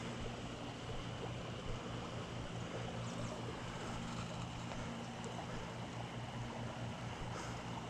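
A steady low hum under an even background hiss, with a few faint clicks.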